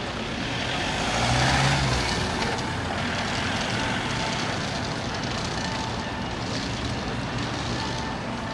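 A motor vehicle drives by close, its engine and tyre noise swelling to its loudest about a second and a half in, then easing back into steady city street noise.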